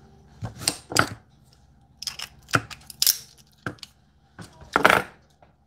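Cooked blue crab shell being cracked and picked apart: a string of sharp cracks and crunches, the loudest near the end.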